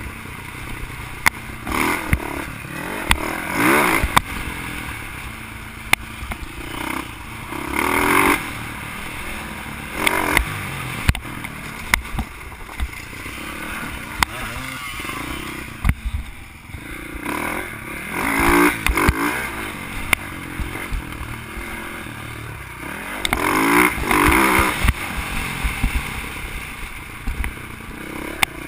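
Dirt bike engine heard from the rider's helmet, revving up in bursts every few seconds and rolling off between them as it is ridden along a rough trail. Frequent sharp knocks and rattles are heard throughout.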